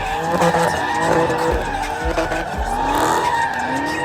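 Dodge Charger Scat Pack's 6.4-litre 392 Hemi V8 under hard acceleration, its pitch repeatedly climbing and dropping back.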